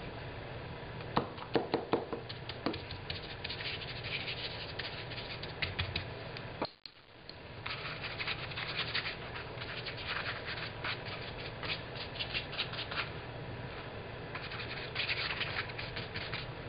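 Paintbrush scrubbing paint into wet bed-sheet fabric: quick, repeated scratchy strokes of the bristles on the damp cloth. There are a few sharp knocks about a second in, and a brief dropout near the middle.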